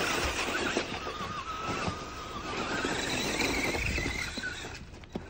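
Electric RC car motors whining as the cars drive through snow, the whine wavering in pitch and stepping higher about three seconds in. It fades near the end, with a short click just before it stops.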